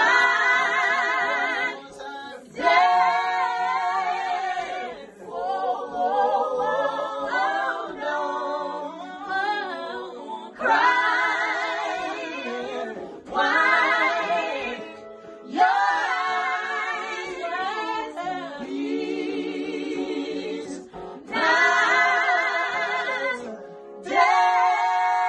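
A small vocal group of two women and a man singing gospel a cappella in harmony, in phrases with vibrato and brief breaks between them.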